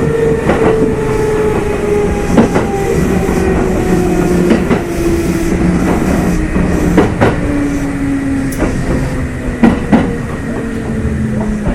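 Kintetsu 2800 series electric train heard from inside motor car Mo 2811: the traction motor and gear whine falls steadily in pitch as the train slows, over the rumble of the running gear and sharp clicks of the wheels crossing rail joints.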